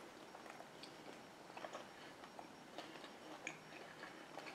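Near silence with faint, scattered soft clicks of a person chewing a bite of chicken wing.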